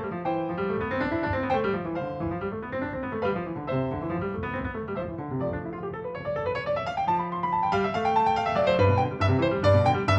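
Background piano music playing flowing arpeggios that rise and fall, growing fuller with deeper bass notes near the end.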